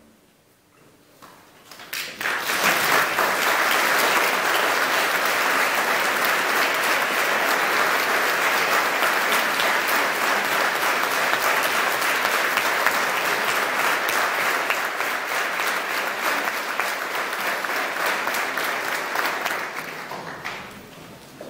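Audience applause. It starts after a brief hush about two seconds in, holds steady and dense, then thins out near the end.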